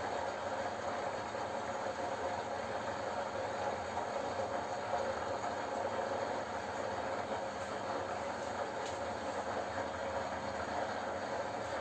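Hot oil in a steel kadai hissing steadily, with Dettol liquid handwash still bubbling in it over a lit gas burner; the boil has mostly settled.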